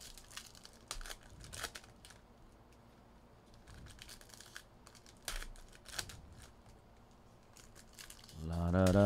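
Plastic wrapping crinkling and tearing in short scattered bursts as a trading-card box or pack is opened. About eight and a half seconds in, a much louder deep chant-like drone with a slight rise in pitch starts.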